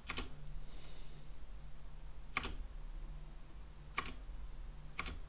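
Four separate key presses on a computer keyboard, spaced one to two seconds apart, each a short sharp click.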